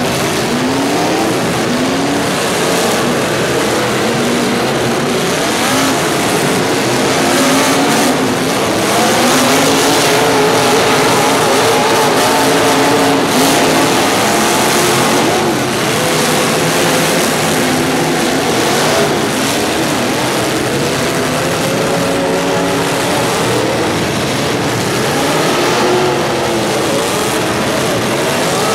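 Several vehicle engines revving over a loud, steady din, their pitch rising and falling again and again.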